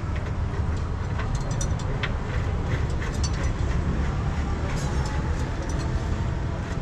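A steady low rumble, with scattered light metal clicks and taps as parts are handled at an open truck wheel hub.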